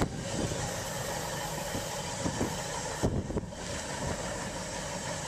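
Passenger train rolling along the track: a steady rumble of wheels on rails, with a few short clacks about two to three and a half seconds in.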